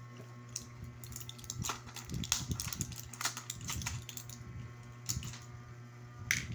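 Irregular clicks and taps of small objects being handled, a few a second at most, over a steady low hum.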